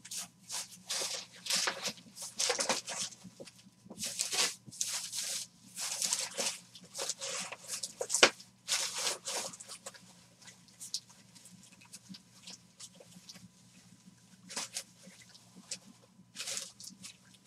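Plastic crinkling and rustling as it is handled, in irregular bursts that are busiest for the first ten seconds and then thin out to occasional rustles. A faint steady hum runs underneath.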